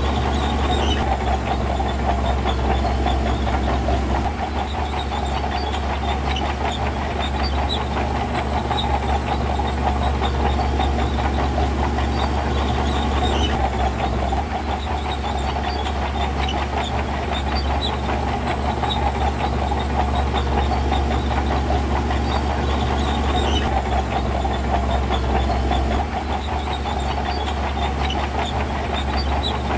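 Heavy diesel earthmoving machinery running steadily under load, with a deep engine rumble.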